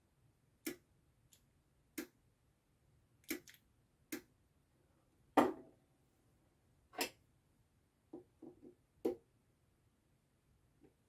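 A series of sharp mechanical clicks, roughly one every second or so, from a push-button switch and timer relay being worked by hand. A heavier knock comes about five and a half seconds in, followed by a few softer clicks near the end.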